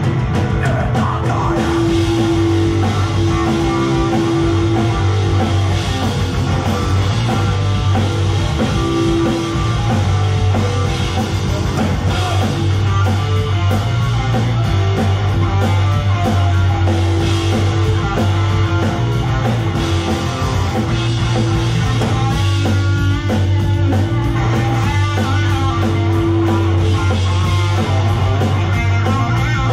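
Live rock band playing loud and steady, with electric guitar, bass guitar and drum kit.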